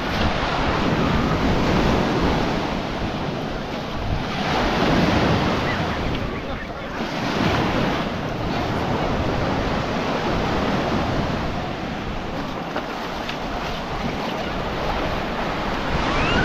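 Baltic Sea surf breaking and washing onto a sandy beach, its rush swelling and easing every few seconds, with wind buffeting the microphone.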